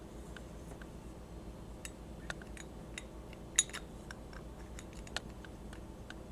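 Scattered light clicks and clinks of a die-cast metal Dinky toy truck being handled, with one sharper click about three and a half seconds in, over a low steady hum.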